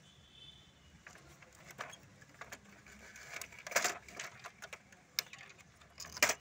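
Small plastic clicks and rattles as fingers work a plastic gear and clutch off the end of an inkjet printer's paper roller, with two louder clacks, one about four seconds in and one just before the end.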